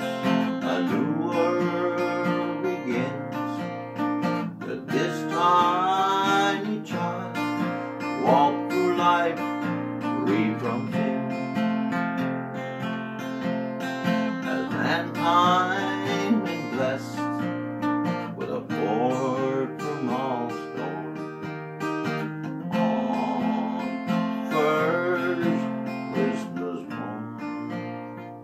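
Acoustic guitar strummed and picked, playing the instrumental close of a slow country ballad, dying away near the end.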